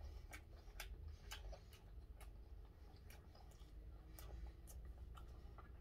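A man chewing gwamegi (dried saury), quiet eating with soft, irregular mouth clicks and smacks, one or two a second.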